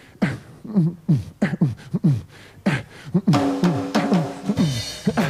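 A man beatboxing into a microphone: a vocal drum beat of short, falling kick-drum thumps and sharp snare and hi-hat clicks in a steady rhythm. About three seconds in a held note joins, and a hiss like a cymbal comes near the end.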